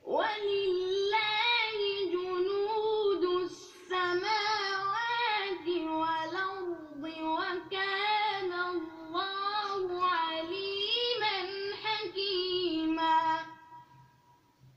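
A boy's voice reciting the Quran in melodic tajweed style, with ornamented turns on long drawn-out vowels. There is a short breath near 4 s in, and the phrase ends on a long held note about 13.5 s in.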